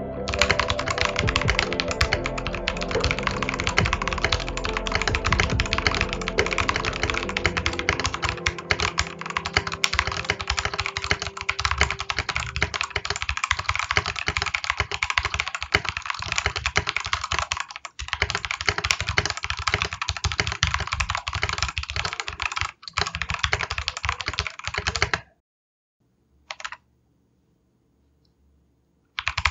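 Fast, continuous typing on a Royal Kludge RK987 mechanical keyboard with red linear switches, set on a bare desk without a desk mat. The typing stops about four seconds before the end, with one short burst of keystrokes in the pause, and starts again right at the end.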